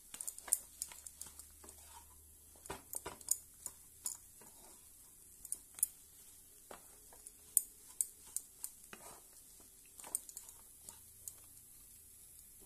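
Flat spatula stirring and scraping a dry, crumbly semolina and grated-coconut mixture in a non-stick pan, knocking against the pan in irregular sharp clicks and scrapes.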